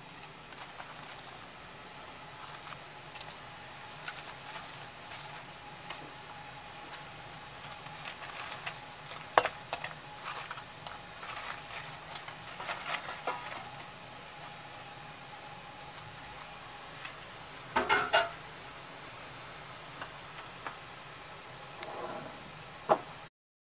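Fried beancurd puffs being tipped from a steel bowl into a stainless steel pot, with scattered clinks and clatters of metal bowl against pot over a steady hiss. The loudest clatter of metal comes about three quarters through.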